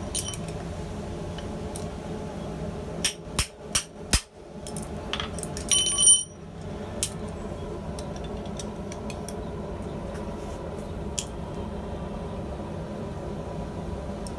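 Hand hammer blows on a hot rivet in a steel rivet header: four quick strikes about three seconds in, then a ringing metallic clink around six seconds, with a couple of lighter taps later over a steady background hum.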